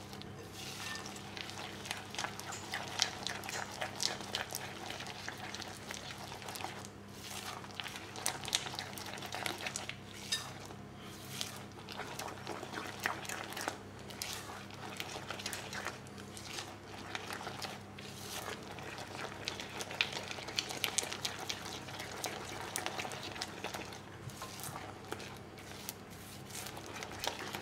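Silicone spatula stirring a thick, gritty paste of butter, icing sugar, egg and chopped pistachios in a glass bowl: an irregular run of soft wet scrapes and clicks against the glass, over a faint steady low hum.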